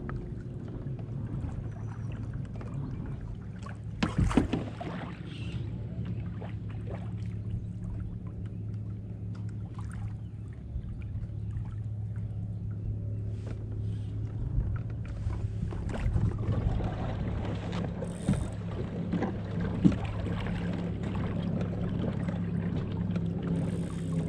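Pedal-drive kayak under way on the water: a steady low hum over the wash of water. There are a few sharp knocks, a cluster about four seconds in and two more near the end.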